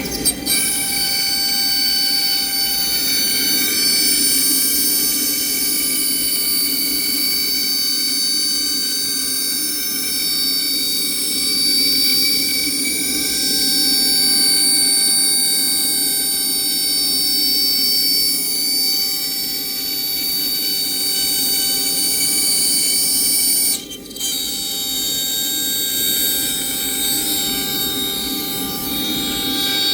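Hobby CNC router milling a 9 mm wood plate: the spindle runs with a steady high whine made of several tones over a hiss of cutting. It dips briefly about three-quarters of the way through, then carries on.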